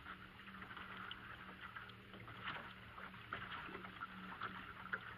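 Boat motor running steadily at trolling speed, a faint low hum under a soft hiss, with scattered small ticks.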